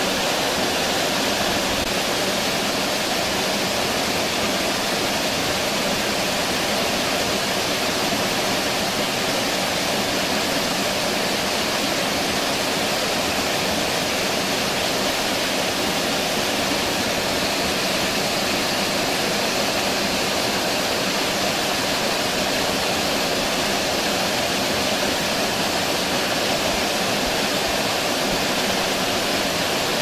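Water pouring over a low stone weir: the steady, even rush of a small waterfall, with no breaks or changes.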